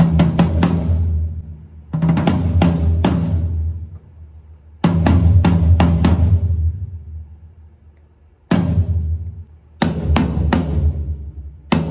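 TAMA Starclassic Bubinga drum kit with MEINL cymbals played in short bursts of a few quick strokes at a time, with deep ringing drums and cymbal crashes. Each burst is left to ring out before the next, as in a sound check.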